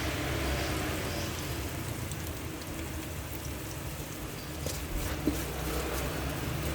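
Ground spice paste sizzling steadily as it is sautéed in a rice cooker's inner pot, with a few light clicks about five seconds in.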